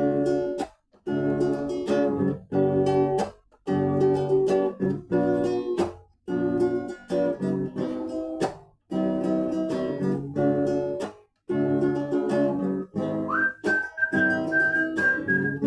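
Acoustic guitar strummed in chords, with short breaks between phrases. About thirteen seconds in, a person starts whistling a melody over it, sliding up to a held note.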